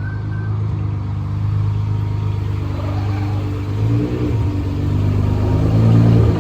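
A car engine running close by, growing louder, with its pitch shifting from about four seconds in as it is given some throttle.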